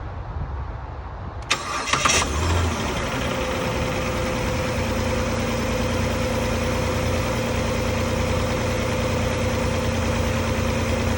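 A 2009 Dodge Journey's engine cranked by its newly fitted starter, catching about two seconds in and settling into a steady idle: the no-start fault is cured.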